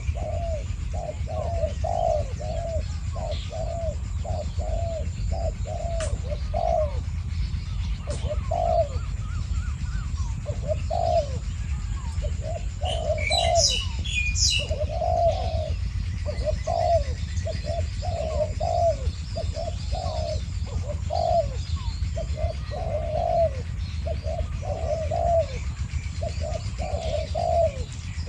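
Spotted doves cooing back and forth, a caged decoy and a wild bird answering it without pause, in a steady run of short low coos. About thirteen seconds in, a small bird chirps briefly.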